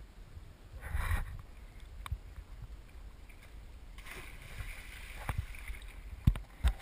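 A person plunges into a river off a rope swing about four seconds in, a splash followed by water washing about. Water slosh and a few hard low knocks against the camera, loudest near the end.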